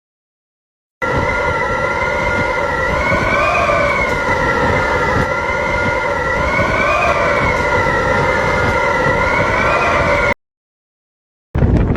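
Howling wind sound effect: a whistling moan of several pitches that slowly rise and fall together over a rumbling rush. It starts about a second in and cuts off suddenly near the end, and a rougher gust of wind starts right at the close.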